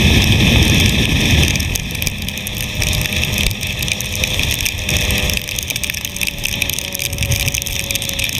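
Suzuki GSX-R 1000 sportbike riding on a wet road, heard from its onboard camera. Heavy wind rush and rain-spray crackle cover the mic, with the engine note under it. The rush is loudest for the first two seconds, then eases to a steady cruising tone.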